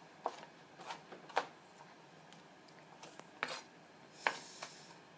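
Kitchen knife dicing a red onion: a scattering of short, sharp chopping strikes, about seven, at an uneven pace.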